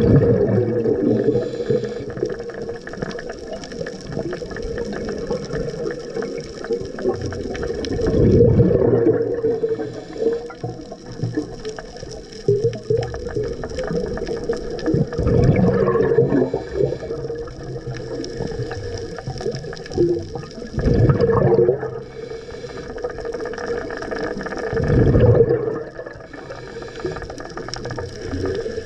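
Scuba diver's exhaled bubbles rushing from a regulator underwater, a gurgling gush about every five seconds over a steady underwater hiss.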